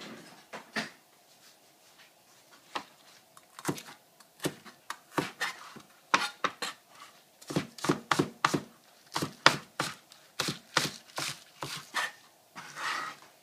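Cleaver chopping green onions on a plastic cutting board: sharp knocks, a few spaced apart at first, then quick runs of several a second in the second half.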